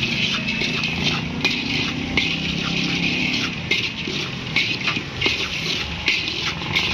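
Metal scraper stirring black chickpeas through hot sand in a large metal wok as they dry-roast: a steady gritty hiss of shifting sand, with frequent quick scrapes and clicks of metal on the wok. A low hum runs underneath for about the first half.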